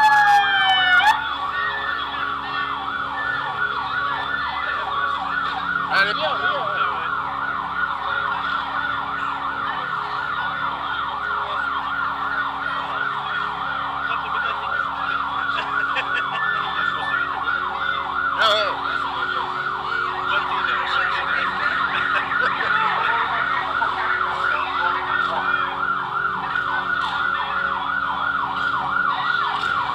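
Electronic siren sounding in a fast yelp, its pitch sweeping up again and again several times a second. A falling tone ends about a second in.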